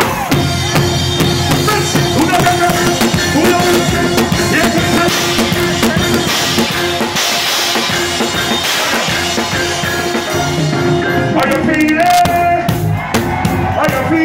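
Live reggae band playing loudly on stage, heard from right behind the drum kit, so the drums and cymbals sit up front in the mix.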